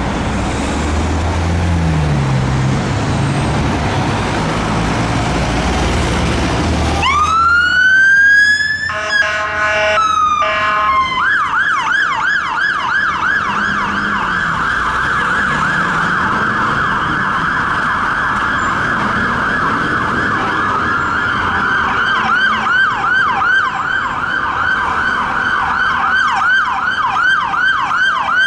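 London Fire Brigade fire engines turning out. At first there is low diesel engine and traffic rumble. About seven seconds in, a siren winds up in pitch, gives a few seconds of bullhorn blasts, then settles into a fast yelp at about three sweeps a second. A second fire engine's siren joins in yelping about two-thirds of the way through.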